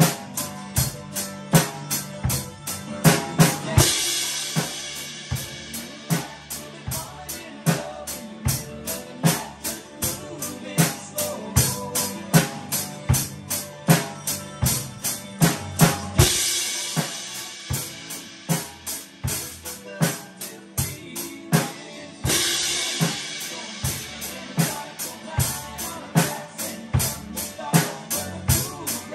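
Gretsch drum kit played in a steady beat of bass drum, snare and cymbals, with crash cymbals ringing out about four seconds in, again near sixteen seconds and near twenty-two seconds.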